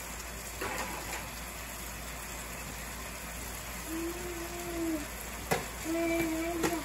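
Gravy simmering around bison patties in a cast iron skillet over a gas flame: a steady low bubbling hiss, with a few sharp clicks and two short steady tones, about four and six seconds in.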